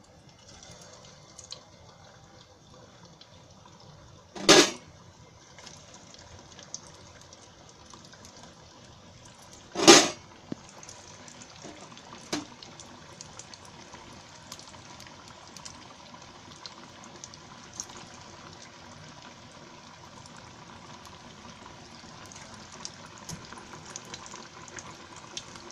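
Pea-and-paneer kabab patties deep-frying in hot oil in a kadhai: a steady sizzle with small crackles that slowly builds, and two brief louder bursts about 4.5 and 10 seconds in as more patties go into the oil.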